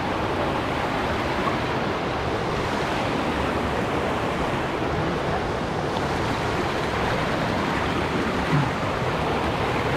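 Creek water rushing steadily, a continuous even roar with no breaks.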